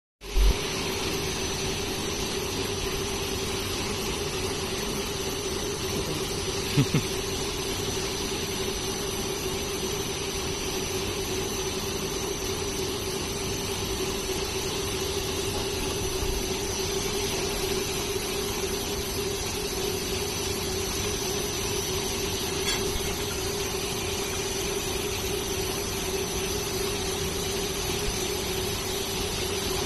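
Semi-automatic bottle label-removing machine running steadily, its motor-driven brush rollers turning with a constant hum. A couple of short knocks come near the start and about seven seconds in.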